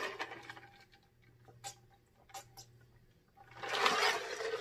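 A person drinking from a glass mug: faint gulps and a few small mouth clicks while swallowing, then a breathy exhale about three and a half seconds in as the mug comes down.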